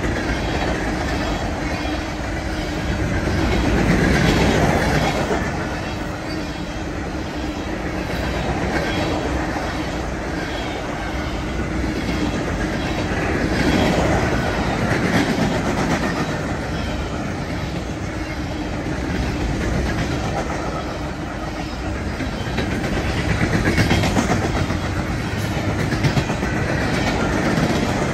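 Grain train's freight cars rolling past, wheels clicking steadily over the rail joints, the sound swelling and easing about every ten seconds.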